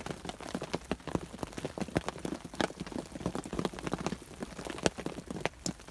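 Sleet falling and pattering in many small, irregular ticks.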